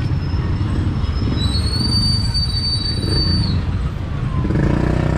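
Street traffic, with small motorcycle and tricycle engines running close by. A thin high-pitched squeal lasts about two seconds in the middle.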